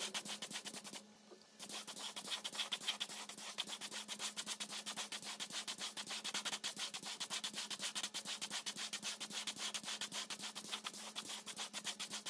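Hand sanding on a rusty metal part: quick, even back-and-forth strokes with a short break about a second in. A faint steady hum runs underneath.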